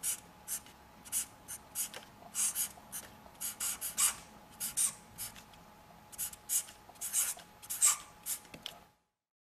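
Marker pen writing letters on a white surface: a quick run of short, dry scratchy strokes, one for each line of each letter, with brief gaps between letters.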